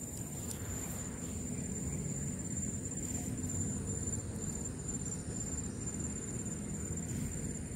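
Steady high-pitched insect chirring, as from crickets or cicadas, over a low steady rumble.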